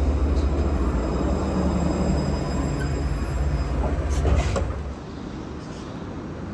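Alstom Citadis tram running, a loud low rumble with faint steady whining tones above it. A brief clatter of clicks comes about four seconds in, and the rumble falls away about five seconds in.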